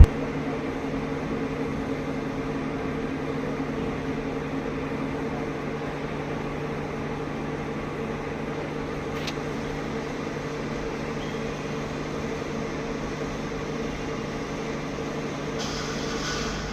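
Steady machine hum with a few fixed low tones over a background noise, unchanging throughout; a faint hiss joins near the end.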